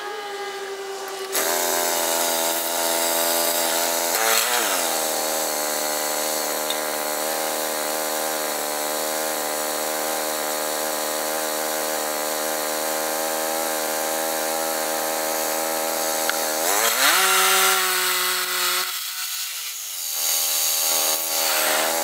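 Small gas engine of a Woodland Mills bandsaw sawmill running. It speeds up to a steady high note about a second in and dips briefly and recovers around four seconds. Near the end it drops back to a lower note, goes quieter for a moment, then picks up again.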